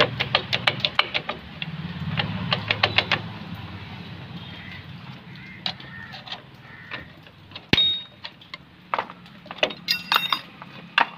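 Metal parts of a Maruti Suzuki Omni rear drum brake clicking and clinking as the brake shoes are pried apart with a screwdriver and pulled off the backing plate. A fast run of clicks comes first, then scattered taps, one sharp metallic ping past the middle, and a short ringing jangle near the end.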